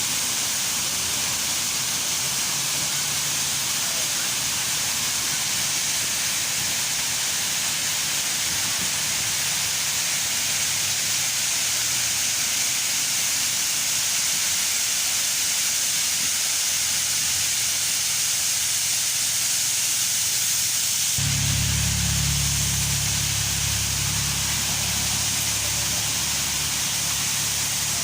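Artificial waterfall: a steady hiss of falling water. A low rumble joins about three quarters of the way through.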